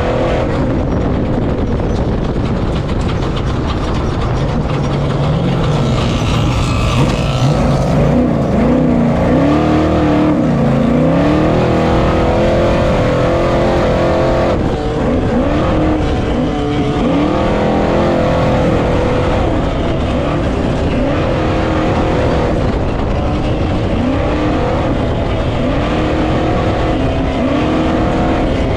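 V8 engine of a Ford Ranger desert race truck heard from inside the cab at speed, its pitch climbing and dropping again and again as the driver works the throttle, over a constant rush of wind and off-road rattle.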